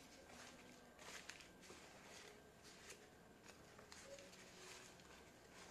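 Faint, irregular rustling and crinkling of crumpled paper packing as hands dig through a cardboard box and unwrap a succulent from its paper.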